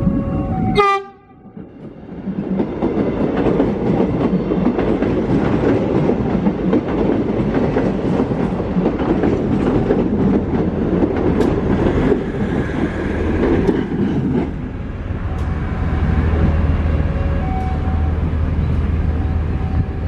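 A KfW electric multiple unit train: its horn ends just after the start, then the train passes close by with a steady rumble and rattle of wheels on rails for about twelve seconds before easing off. Near the end, short horn notes sound over a low hum.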